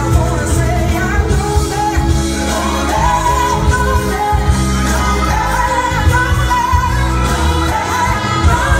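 Pop music with a singer over a steady bass beat.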